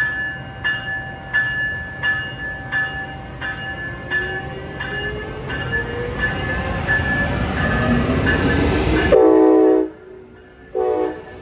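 Siemens ACS-64 electric locomotive pulling out with its passenger cars, its bell ringing at a steady beat of about one and a half strokes a second while a motor whine rises in pitch as the train gathers speed. Near the end a train horn sounds one long blast, the loudest part, then a short one.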